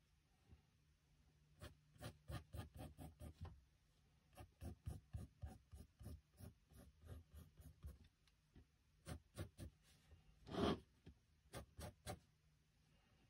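Pencil drawing on sketchbook paper: runs of quick, short scratchy strokes in bursts, with one louder, longer scrape about three quarters of the way through.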